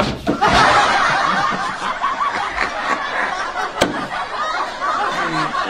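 Many people laughing together, a dense wash of overlapping laughter that starts with a sharp knock at the very beginning, with a single click about four seconds in.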